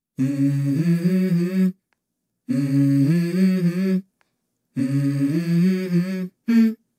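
A voice humming a short melody as the intro to a hip-hop track: the same phrase three times with clean breaks between them, then a brief extra note near the end.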